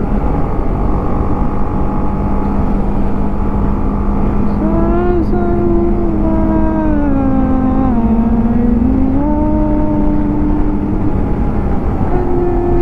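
BMW G 310 GS single-cylinder engine running on the move over steady wind and road rumble. About a third of the way in its note comes up, sinks lower as the bike eases off, then climbs again as it pulls away.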